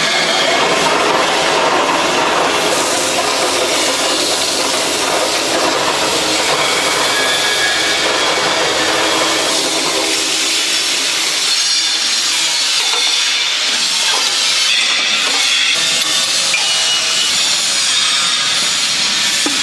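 A workshop power tool cutting material: a steady, harsh noise running without a break.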